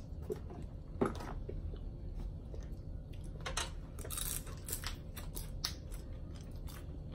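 Eating sounds: scattered small clicks and cracks of crab-leg shells being picked apart by hand, with some chewing; one sharper crack about a second in.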